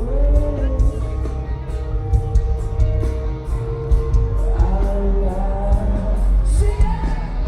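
Alternative metal band playing live: guitars, bass and drums under a sung vocal line, loud and steady.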